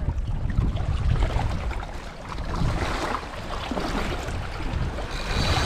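Wind buffeting the microphone in a low, uneven rumble over the wash of the sea.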